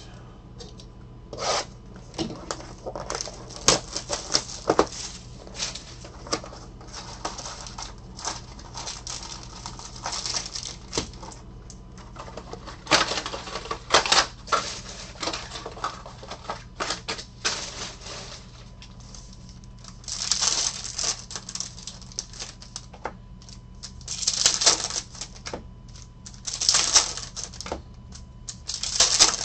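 A Select H2 basketball card box being unpacked and its foil card packs handled and torn open: rapid clicks and taps of packs and cards set down on the table, with plastic wrapper crinkling. Several longer tearing rustles come in the second half as the packs are ripped open.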